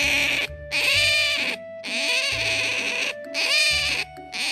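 Asian small-clawed otter squealing: a run of long, high-pitched calls, three or four of them broken by brief pauses, over background music.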